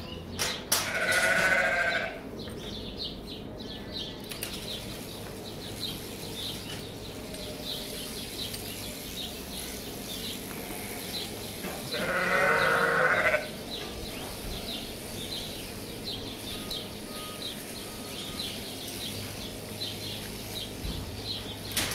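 A sheep bleats twice: one call about a second in and a second call about eleven seconds later, each lasting roughly a second.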